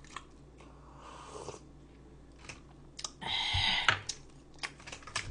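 Eating noises from a lunchbox meal: chewing and small scattered clicks of utensils against the plastic container, with a short hissing burst about three seconds in.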